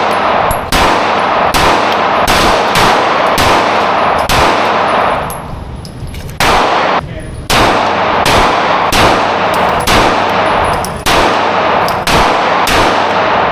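Rifle shots fired one at a time at a steady pace, roughly one or two a second, each leaving a ringing echo, with a short pause about halfway through.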